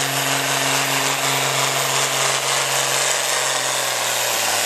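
John Deere pulling tractor's diesel engine running at full throttle under heavy load as it drags the weight sled, loud and holding a steady pitch.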